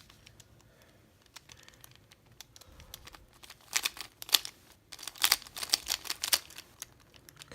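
A 3x3 Rubik's Cube being turned by hand through a left-handed J-perm: a run of plastic clicks and clacks as the layers snap round. The clicks are sparse and faint at first, then come quick and loud from about four to six and a half seconds in.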